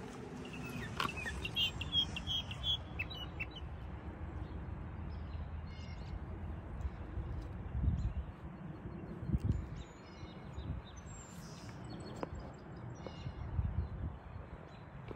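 Small songbirds chirping in short, high calls: a quick run of chirps in the first few seconds, then fainter calls on and off. Under them runs a steady low rumble with a few heavier low thumps in the middle.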